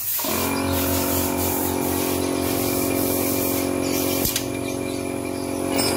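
A steady machine hum with several held, unchanging tones over a hiss, cutting in suddenly at the start; a single sharp click about four seconds in.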